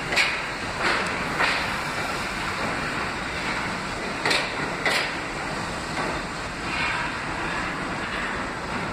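Westinghouse-Amrail R68 subway train pulling out of an underground station: a steady rumble of steel wheels on rail, with sharp wheel clacks over rail joints, three in the first second and a half and two more about four and five seconds in.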